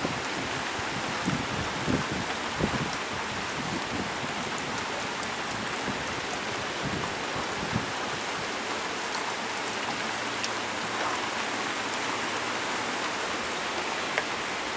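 Steady heavy rain from a tropical storm, falling and pattering on surfaces, with scattered fine drop ticks. Wind gusts buffet the microphone with a few low thumps in the first half.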